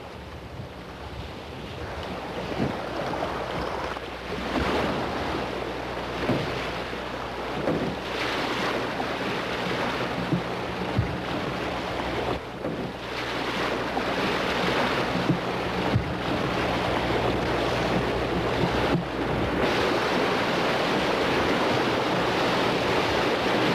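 Steady rush of the Deschutes River's current flowing around wading anglers, with wind noise on the microphone. It grows gradually louder, over a faint low hum.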